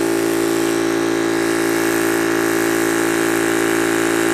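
Yong Heng high-pressure PCP air compressor running steadily under load as it fills a tank at about 3,700 PSI.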